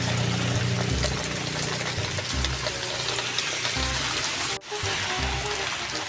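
Background music over a steady rushing noise, with a brief break about four and a half seconds in.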